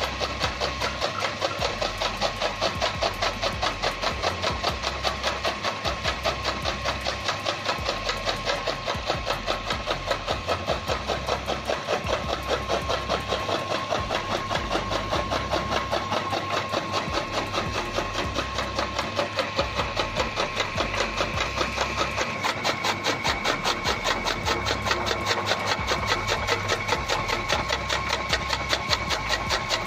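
Electric chaff cutter running, its motor-driven flywheel blades chopping green fodder in a rapid, regular rhythm over a steady motor whine.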